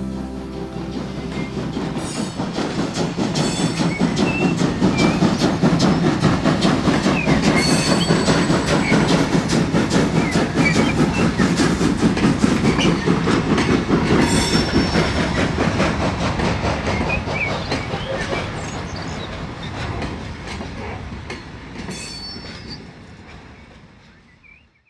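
A train running on rails as it passes: a dense clatter of wheels over rail joints with brief wheel squeals, building up over the first few seconds, loudest in the middle and fading away near the end.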